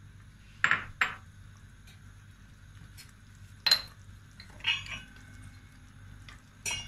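Kitchen utensils and dishes clinking: about five short, sharp clinks and knocks spaced out over several seconds, one about halfway through ringing briefly like metal.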